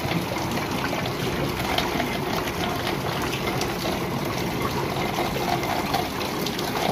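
Steady rain, with rainwater pouring off the roof and splashing onto wet concrete.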